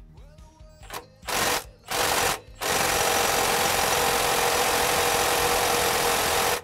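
Impact wrench on the oil pump's mounting bolt: two short bursts, then a steady run of about four seconds with a whine, stopping abruptly. The bolt does not break loose; a stronger gun is needed afterwards.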